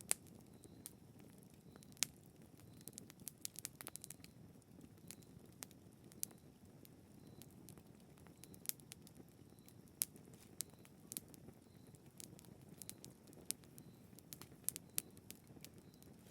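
Wood campfire crackling, with irregular sharp snaps and pops over a faint low rumble.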